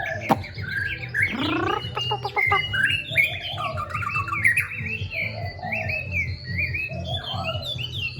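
Pet songbird singing a varied song of quick repeated phrases that rise and fall in pitch, over a steady low hum.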